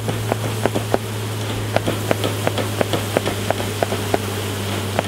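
Beekeeper's smoker bellows being pumped in quick puffs, about three a second, to smoke the bees before the hive is opened further. Under it, a steady buzzing hum of honeybees.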